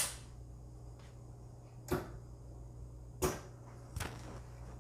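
Four short, sharp clicks or knocks at uneven spacing, over a steady low hum.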